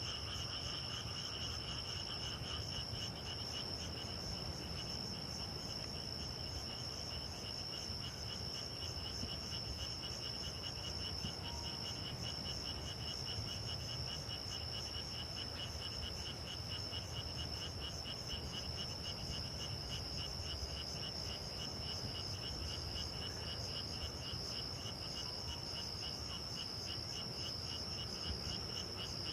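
Night chorus of grass insects such as crickets, trilling steadily and without a break at two high pitches, the lower one a rapid pulsing buzz.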